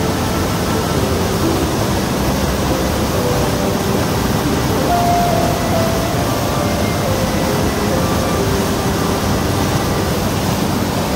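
Loud, steady rush of cascading water from a waterfall, even and unbroken, with faint short tones over it.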